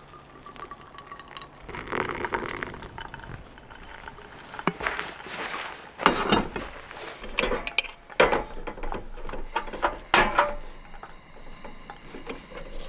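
Hot water poured from a kettle into a paper-filter pour-over coffee dripper, followed by a run of sharp metal clinks and knocks.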